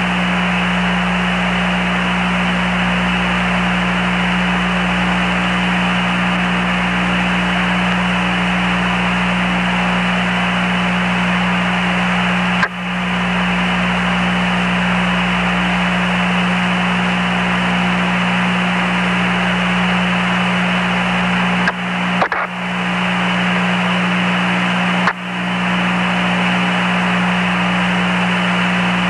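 Steady hiss and a low hum on an open radio channel, cut by a few short dropouts.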